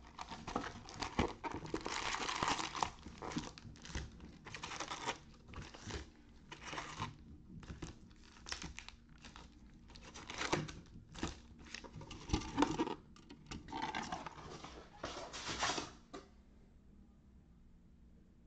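Foil trading-card packs crinkling and rustling in irregular bursts as gloved hands pull them out of a cardboard hobby box and stack them, stopping near the end.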